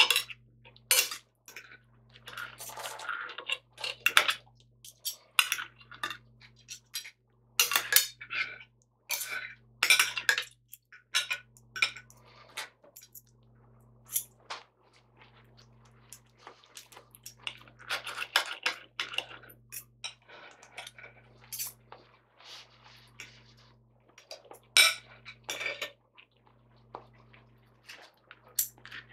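Knife and fork clinking and scraping on a plate while cutting up a fried breakfast: irregular sharp clicks with short stretches of scraping.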